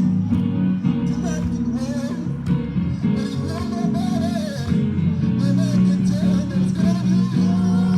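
Music: held bass notes under a wavering melody line, with a guitar-like plucked-string sound.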